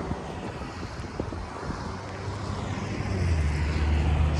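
A motor vehicle passing in street traffic, its low engine rumble growing louder over the last couple of seconds, with wind on the microphone.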